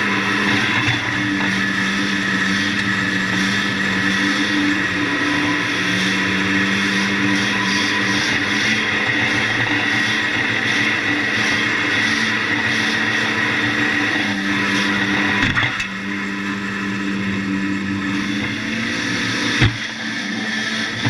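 A 1600-class banger race car's engine running hard at fairly steady revs, heard from inside the stripped-out cabin, easing off briefly a couple of times. A single sharp bang near the end.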